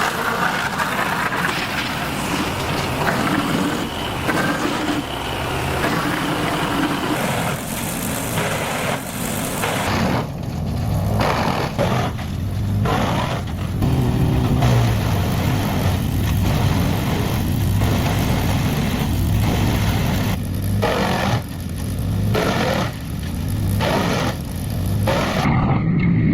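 Large wood chipper running hard, a heavy low engine note with a dense rushing noise over it, and a string of short, sharper strokes about once a second through the second half as wood goes through.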